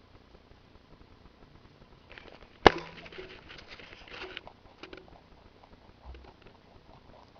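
Rabbits eating from stoneware bowls: soft nibbling and crunching. A little under three seconds in comes one sharp knock that rings briefly, then a short spell of louder crunching and a few small clicks.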